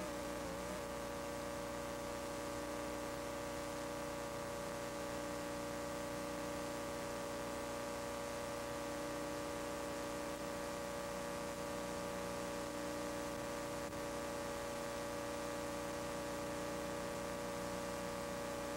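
Steady electrical mains hum, several tones at once over a hiss, on an old videotape's sound track, with a brief wavering in pitch right at the start.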